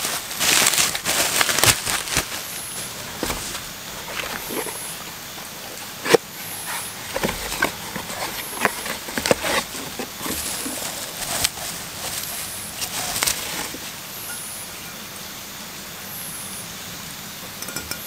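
Plastic bubble wrap crinkling and rustling in the hands as a wrapped cup is unwrapped, in irregular crackles, clicks and scrapes, with cardboard box flaps handled along the way.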